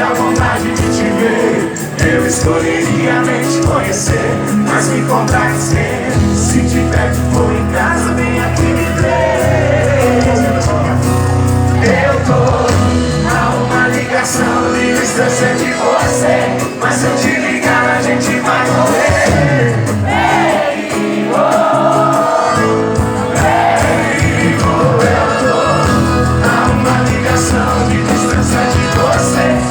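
Music with a singing voice over held bass notes; the bass drops out briefly twice.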